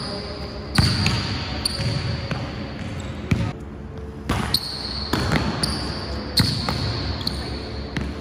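A basketball bouncing on a hardwood gym floor and hitting the backboard and rim during a rebound and finishing drill: about half a dozen sharp impacts, roughly a second apart.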